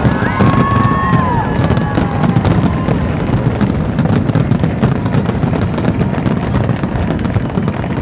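Fireworks display: a dense, continuous barrage of crackling bursts and bangs over a low rumble, with a few high whistles rising and falling in the first second and a half.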